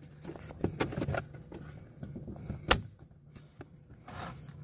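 Plastic clicks and knocks from a car's interior door handle and its trim being worked loose from the door panel by hand. A few light clicks come early, then one sharp, loud click a little past halfway.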